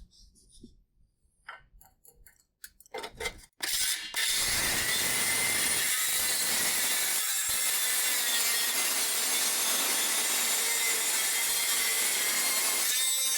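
A few knocks and clatters of handling, then a power tool cutting steadily for about nine seconds before it stops near the end.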